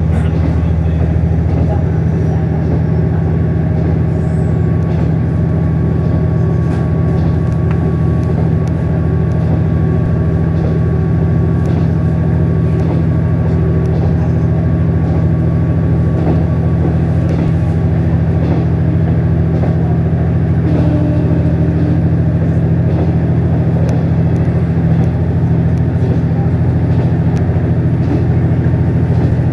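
Steady drone of a KiHa 48 diesel railcar running along the line, heard from inside the passenger car, with faint clicks from the track now and then.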